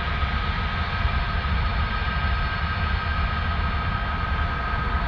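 Jet airliner engines running steadily: a constant low rumble with a steady high whine.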